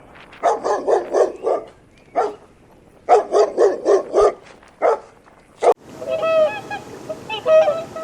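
Animal calls: two runs of loud, harsh calls coming several a second, then a sudden cut near the end to fainter, higher calls over a steady background hiss.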